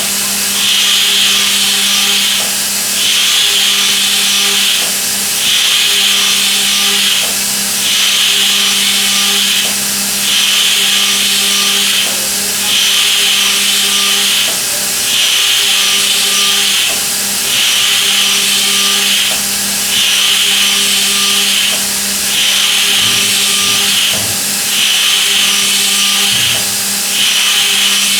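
Milling machine cutting in high-feed passes: a steady hum from the machine under a loud hissing cutting noise that lasts about two seconds per pass and breaks off briefly between passes, repeating about every two and a half seconds.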